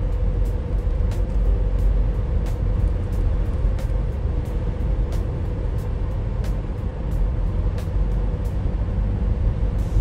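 Steady low road rumble inside a moving car's cabin, with background music carrying a light, regular ticking beat over it.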